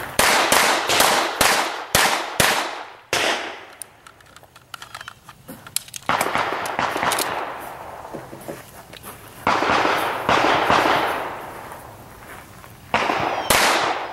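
Semi-automatic pistol firing a timed string of shots: about six in quick succession, a pause of a few seconds, then further shots in pairs and small groups. Each shot is a sharp bang with a short echo.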